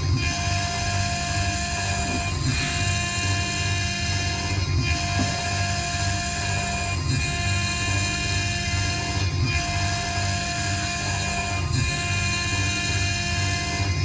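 High-speed spindle of a CNC IC grinding machine running with a steady high whine as its small cutter grinds down the memory chip on an iPhone 6S logic board. The sound dips briefly about every two and a quarter seconds.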